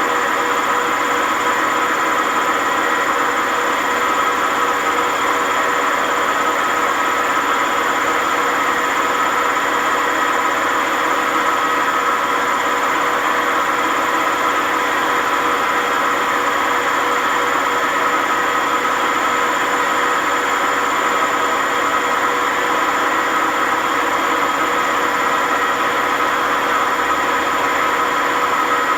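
WMA50 washing machine spinning at speed with its ballast weights removed, the drum bearings making a steady, loud grinding hum with several held tones: very bad bearing noise from worn drum bearings.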